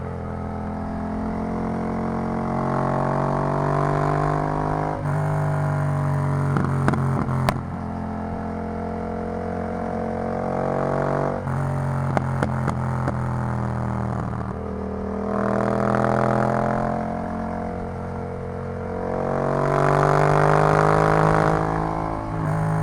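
Yamaha MT-07's 689 cc parallel-twin engine breathing through an Arrow full exhaust system. It pulls up through the revs in several rising stretches with short breaks between them, and is loudest in two surges near the end.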